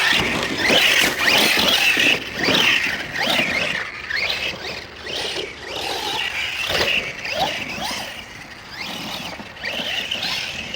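Brushless electric motor of an Arrma Outcast 1/8 RC stunt truck on a 4S battery, whining and rising and falling in pitch again and again as the throttle is pumped.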